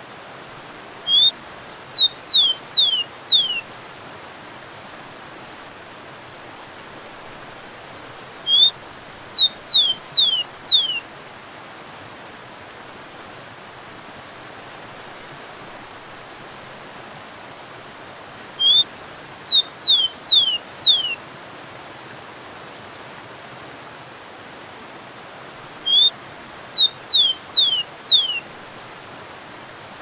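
Rufous-collared sparrow singing four times, about every eight seconds. Each song is a short rising note followed by four or five falling slurred whistles. A steady rush of waterfall water runs underneath.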